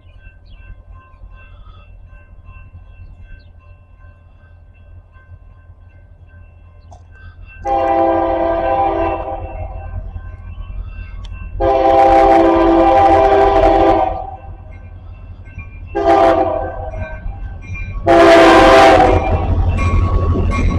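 CSX freight locomotive's air horn blowing the grade-crossing signal: long, long, short, long. A low rumble underlies it, and near the end the rushing noise of the train arriving swells up under the last blast.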